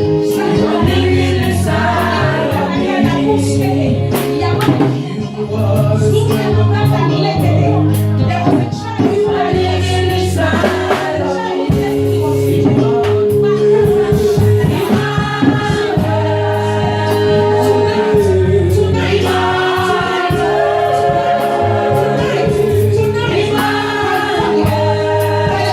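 Gospel worship music: a choir singing over bass and drums with a steady beat.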